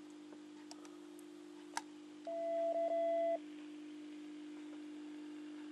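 A steady hum, then a click, then about half a second later a single beep of about a second from the Kenwood TM-241 transceiver's speaker: the repeater answering the radio, a sign that the transceiver reaches it at 5 watts. After the beep a faint steady hiss stays on as the repeater's signal keeps the receiver open.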